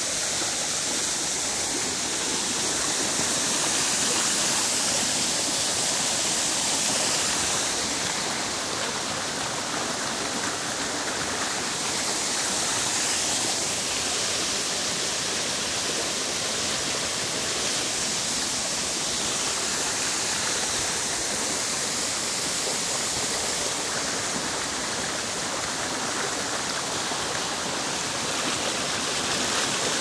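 Water rushing and splashing over rocks in a rocky stream and small waterfall: a steady rush with only gentle swells in loudness.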